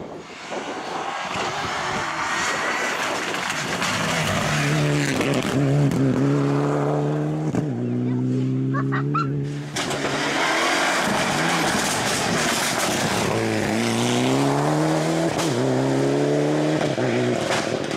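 Mitsubishi Lancer Evolution rally car's turbocharged four-cylinder engine at full throttle. The pitch climbs through each gear and drops back at the shifts, over several passes, with a quieter moment around the middle.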